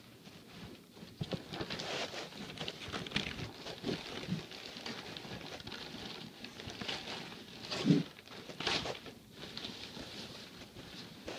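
Newspaper and packing paper rustling and crinkling as a tree is dug out of a shipping box by hand, with a dull thump about eight seconds in.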